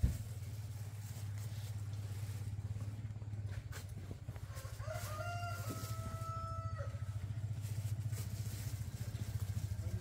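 A small engine runs steadily with a low hum, and a rooster crows once, about five seconds in.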